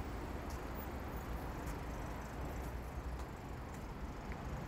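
Steady traffic noise: cars driving slowly past close by, a low rumble of engines and tyres.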